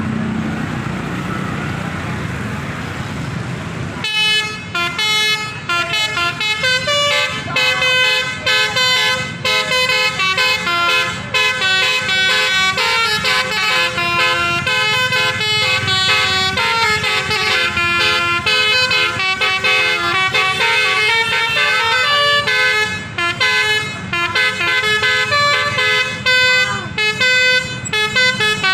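Indonesian bus 'telolet' horn, a multi-trumpet musical air horn, playing a long run of quick-changing tunes over a low traffic rumble. The horn starts about four seconds in.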